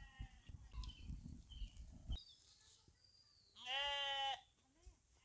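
Low knocks and rustling handling sounds for the first two seconds, with a faint animal call at the very start. After a pause, a goat bleats once, a single wavering call of under a second a little past the middle, the loudest sound here.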